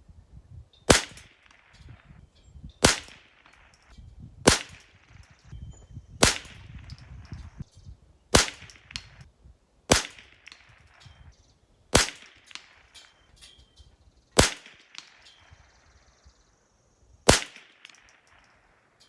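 Rifle fired in a steady string of nine sharp, loud shots, roughly one every two seconds, with a slightly longer pause before the last one.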